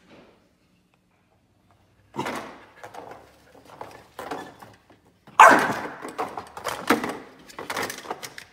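Chow Chow puppy barking, a run of short barks that begins about two seconds in, the loudest just past halfway.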